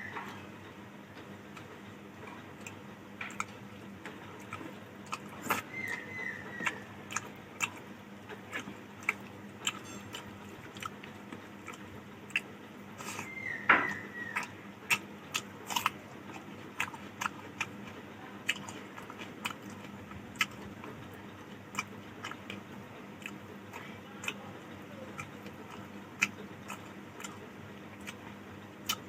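Close-up mouth sounds of someone eating rice and fish curry: chewing, with irregular wet lip smacks and clicks, the loudest cluster about halfway through.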